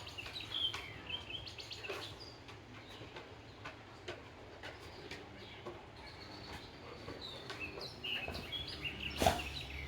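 Songbirds chirping and calling in short twittering phrases, busiest near the start and again near the end, over a faint low steady drone that the recordist takes for frogs. A single sharp knock comes just before the end.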